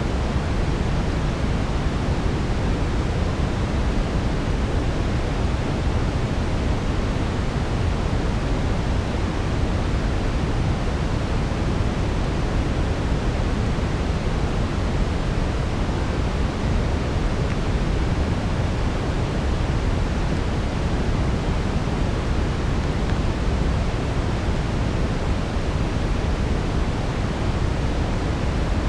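Steady brown noise: a deep, even rushing hiss, heaviest in the bass, with no change and no distinct crackles standing out.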